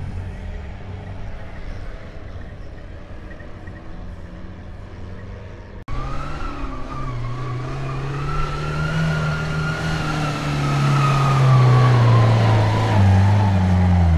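Pinzgauer 4x4 military utility vehicle driving through loose sand, its engine running under load. After a sudden cut the engine pitch rises and falls as it climbs, with a high whine that rises and falls along with it, getting louder near the end.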